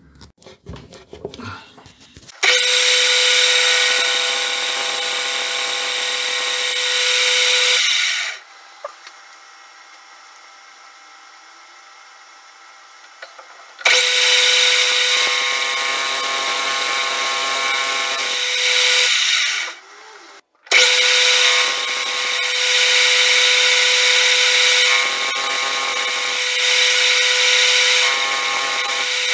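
Benchtop metal lathe running and machining metal, a steady whining cut that holds for several seconds at a time. It comes in three long stretches, with a faint hum for about six seconds between the first two and a brief stop a little after two-thirds of the way through.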